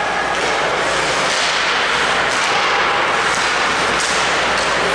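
Ice hockey play in an arena: a steady wash of skates carving and scraping the ice, with a few sharp clacks of sticks and puck about halfway through.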